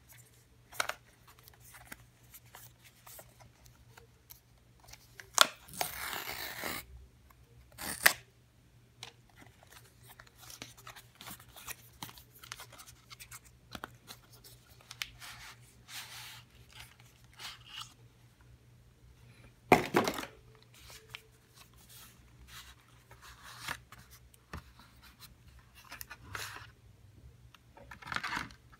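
Cardboard retail box and its inner packaging being opened and handled: scattered rustling, scraping of card and small clicks, with a ripping tear lasting about a second beginning about five seconds in and sharp taps, the loudest near twenty seconds.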